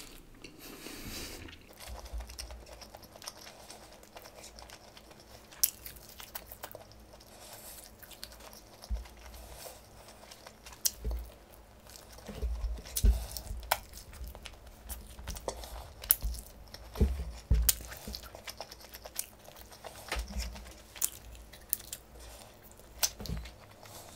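A person biting and chewing a crispy fried chicken drumstick close to the microphone: irregular crunches and sharp clicks, more frequent in the second half.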